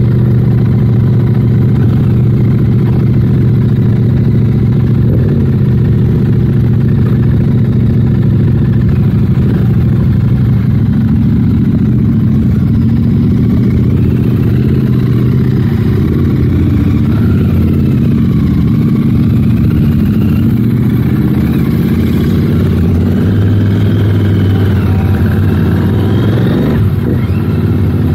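Royal Enfield 650 parallel-twin motorcycle engine running, heard from the rider's seat: it runs steadily at first, then changes pitch through the gears as the bike pulls away and rides on.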